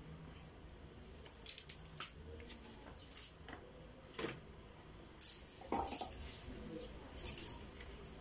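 Irregular light clicks and clatters of small hard objects being handled, about one a second, over a faint low hum.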